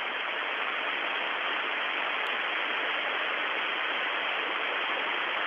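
Steady hiss of radio static on an open air-to-ground voice channel, cut off sharply above the upper speech range.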